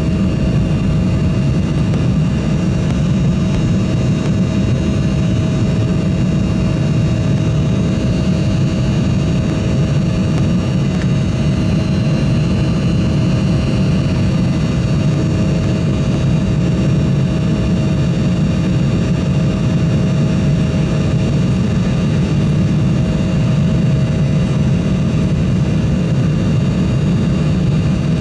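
Embraer 175 airliner's GE CF34 turbofan engines at takeoff power just after liftoff and into the climb, heard from inside the cabin: a loud, steady rumble with steady whining tones above it.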